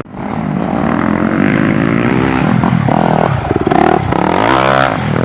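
Motocross dirt bike engine revving on a dirt track, its pitch climbing and dropping several times with the throttle and gear changes.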